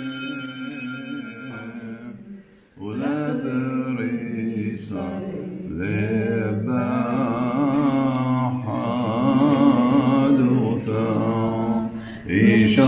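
A man chanting unaccompanied in long, drawn-out phrases with a wavering pitch, breaking off briefly about two and a half seconds in before singing on.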